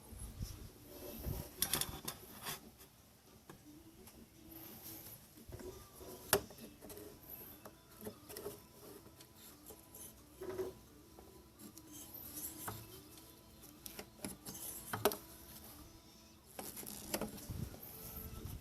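Irregular clicks, taps and rustling of hand work with tools and parts, with a sharp click at about six seconds and another near fifteen.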